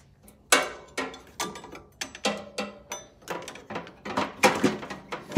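Steel battery hold-down bar and J-bolts clinking and scraping against the battery box as they are fitted by hand: a series of irregular metallic clicks, about two or three a second.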